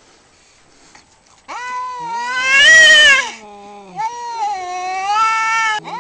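Domestic cat yowling in a fight standoff: after a quiet start, two long drawn-out wails, the first rising to a loud peak about halfway through and sliding down again, the second steadier and a little quieter. This is the threatening caterwaul of two tomcats squaring off before or between blows.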